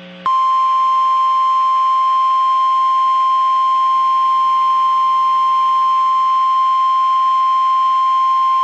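NOAA Weather Radio 1050 Hz warning alarm tone: a single loud, steady beep that starts a moment in and holds without a break. It alerts listeners that an urgent weather message follows, here a severe thunderstorm watch.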